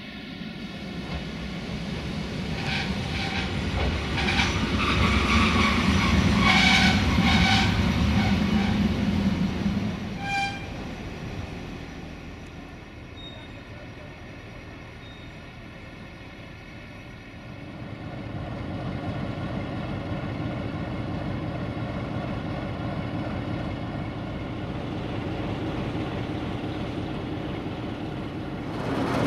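Malaxa diesel railcar running into the station: its engine rumble grows louder over the first several seconds, with high squeals as it slows. A short high tone comes about ten seconds in. The sound then drops to a quieter engine idle, and a steady diesel drone rises again after about eighteen seconds.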